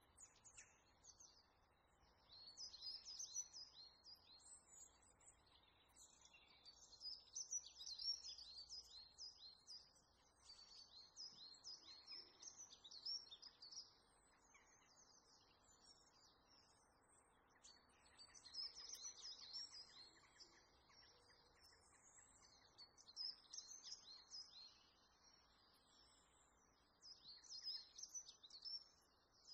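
Small birds chirping and singing in repeated bursts of quick high notes, a short phrase every few seconds, over faint background hiss.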